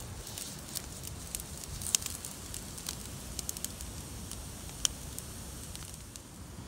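Wood campfire crackling and popping in scattered sharp snaps, with two louder pops about two seconds in and near five seconds, over a low steady rumble.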